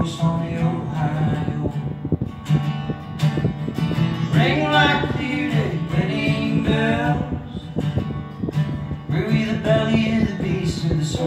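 Live folk song: a man singing over a strummed acoustic guitar, with a second plucked string instrument alongside.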